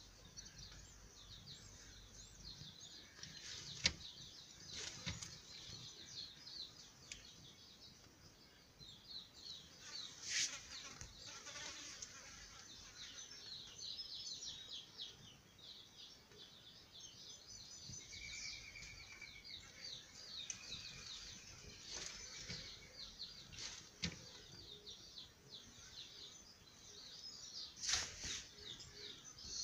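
Small birds chirping and twittering continually, faint, with a few sharp clicks now and then.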